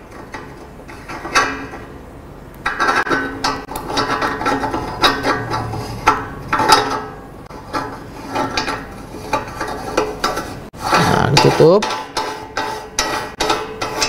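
Stainless-steel meat grinder head parts clinking and scraping as the perforated cutting plate is fitted and the head is closed by hand: many irregular metallic clicks and clinks.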